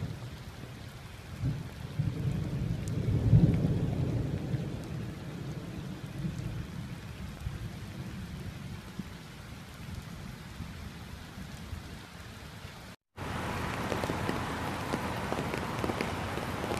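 Rain falling on a flooded street, with a low rumble that swells in the first few seconds and then fades. After a brief dropout about thirteen seconds in, rain falls on standing water, brighter and full of small ticks.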